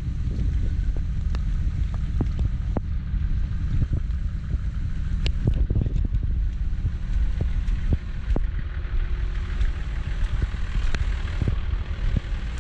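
Toyota LandCruiser 80 series running while stuck bogged in mud: a steady low rumble with frequent short knocks and clicks.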